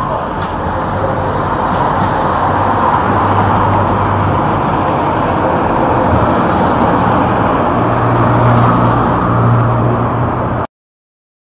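Street traffic noise with a motor vehicle engine running nearby, a steady rumble with a low hum. It cuts off suddenly near the end.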